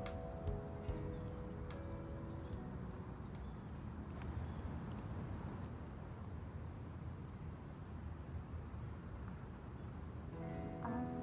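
A steady, high-pitched chorus of insects, with crickets chirping continuously. Soft background music fades out in the first two seconds and comes back near the end.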